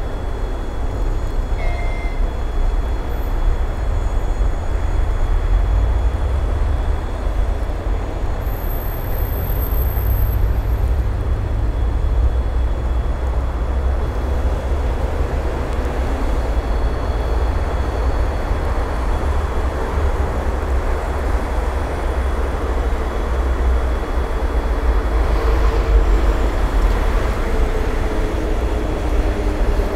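ED9E electric multiple unit running toward the listener over snow-covered track: a steady rumble of the train with a deep low drone. A humming tone from the train comes in over the last few seconds as it draws near.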